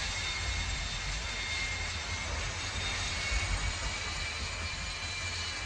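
Jet fighter's turbine engine running steadily: a rushing noise with a thin high whine on top and a low rumble beneath.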